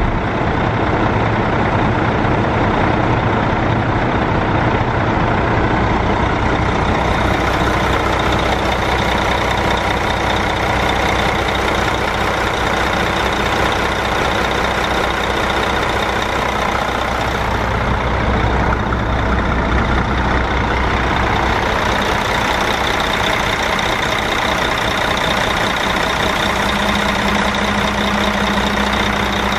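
Mercedes-Benz MBE4000 12-litre inline-six diesel of a semi truck idling steadily, with a steady low tone coming in near the end.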